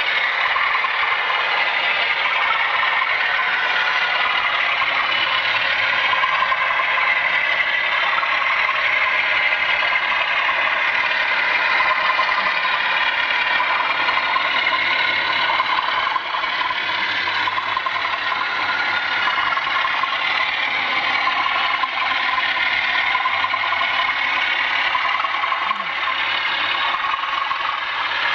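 Model train running on the layout: a pair of model Class 37 diesel locomotives hauling coaches, with a steady, continuous rattle and clatter of wheels and motors on the track.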